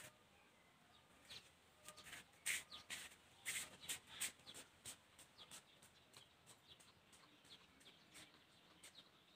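Faint, irregular short chirps and clicks over a near-silent background, coming thickest and loudest from about a second in to the middle, then thinning out.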